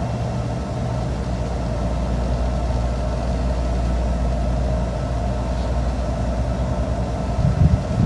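Wildcat Express gondola summit station running with a steady low mechanical hum as a cabin moves slowly through the station. Gusts of wind start buffeting the microphone near the end.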